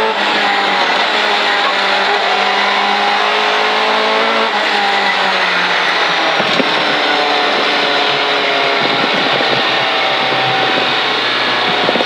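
2-litre Toyota Corolla Twincam rally car engine heard from inside the cabin, held at steady high revs, then easing off about halfway through, its pitch falling and settling lower under tyre and road noise.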